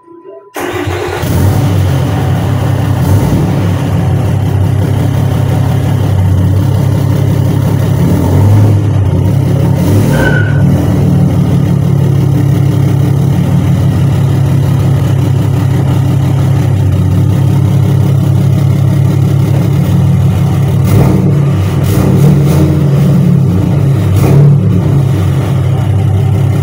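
Cummins turbo-diesel engine of a third-generation Ram pickup running loud and steady while the truck is moved slowly. It comes in about half a second in.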